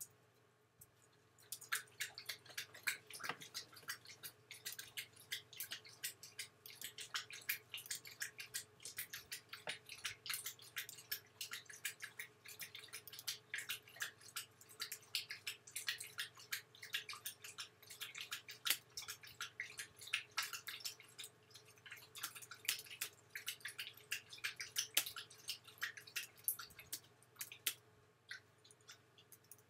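Typing on a computer keyboard: a steady run of quick key clicks that starts about a second and a half in, over a faint steady low hum.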